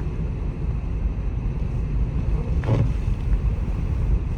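Steady low rumble of a car driving on snowy roads, heard from inside the cabin.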